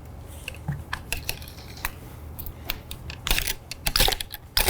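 A cleaning rod with a patch being worked through a rifle barrel by hand. Scattered sharp metal clicks and light scrapes turn into a quicker run of louder clicks and scraping in the last second and a half.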